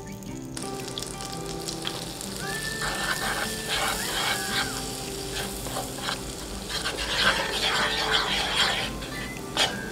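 Butter sizzling and bubbling in a nonstick frying pan while a spoonful of flour is stirred into it with a wooden spoon, the early stage of cooking a roux over low heat. The crackle and spoon scraping grow busier about seven seconds in.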